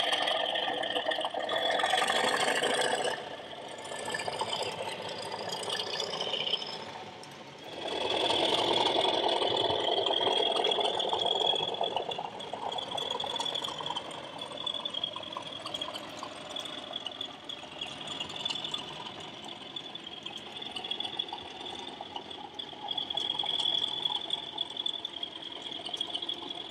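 OO gauge Accurascale Class 37 model locomotive running on the track, its factory-fitted ESU LokSound 5 decoder playing the diesel engine sound through the onboard speaker, with the rattle of the wheels on the rails. Louder near the start and again from about eight to twelve seconds in.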